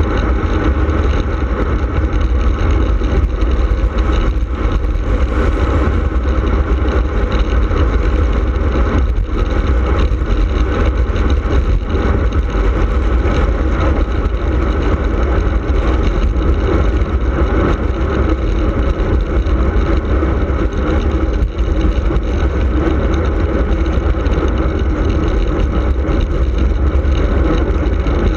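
Wind buffeting the microphone of a handlebar-mounted camera on a racing bicycle descending at speed: a loud, steady, deep rumble mixed with road noise.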